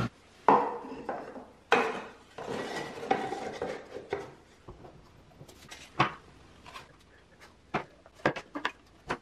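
Wooden pieces handled and fitted by hand: scattered knocks and some rubbing of wood on wood, then a quick run of small clicks near the end as a spring clamp goes on.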